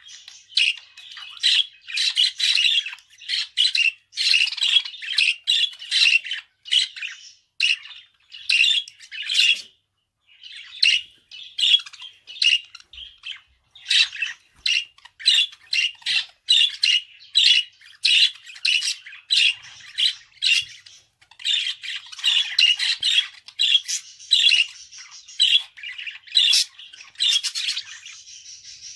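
Budgerigar chattering: a quick run of short, scratchy squawks and chirps, with a brief pause about ten seconds in.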